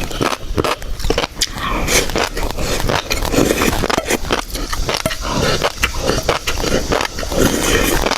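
Close-miked chewing and biting of shrimp topped with fish roe: a dense, steady run of sharp wet crackles and clicks.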